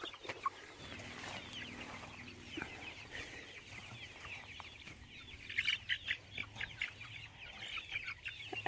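A flock of chickens calling with many short, high, falling peeps and clucks, overlapping throughout and busiest a little past the middle.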